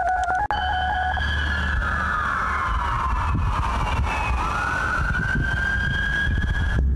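Emergency vehicle siren wailing in the street, its pitch sliding slowly down and then back up before it cuts off near the end, over a low traffic rumble. A brief steady electronic keyboard tone plays in the first half second.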